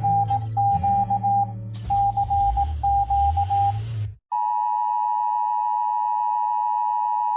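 Emergency Alert System broadcast alarm: an electronic tone beeping in an irregular pulsed pattern over a low buzz. About four seconds in it gives way to a steady two-tone EAS attention signal.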